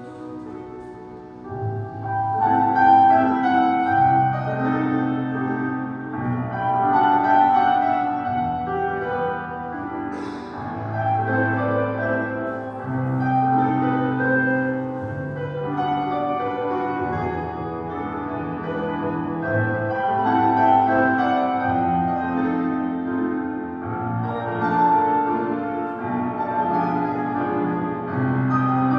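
Classical piano music accompanying a ballet exercise, softer at first and fuller from about two seconds in.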